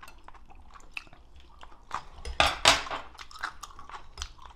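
Eating at the table: chewing, with a metal spoon and steel chopsticks clicking against ceramic bowls in short scattered ticks. About two and a half seconds in comes a brief, louder noise of about half a second.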